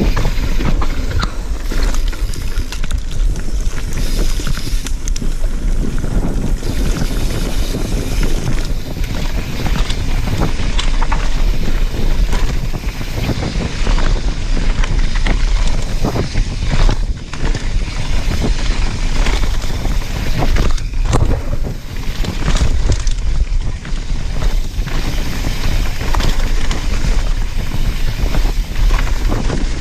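Nukeproof Mega 290 mountain bike descending a dirt trail at speed: wind rushing over the camera microphone, tyres rolling on the dirt, and frequent knocks and clatters from the bike over bumps.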